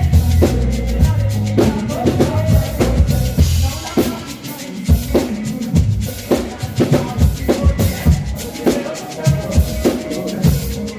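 Instrumental band music driven by a drum kit, with kick drum, snare and rimshot hits keeping a steady beat over low bass notes.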